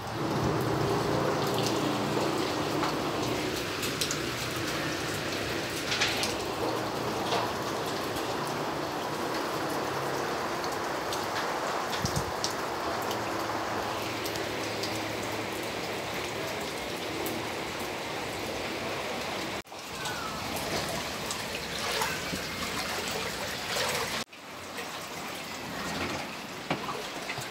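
Heavy rain falling steadily, with water running and dripping, as floodwater rises into a room. The sound cuts out briefly twice, about 20 and 24 seconds in.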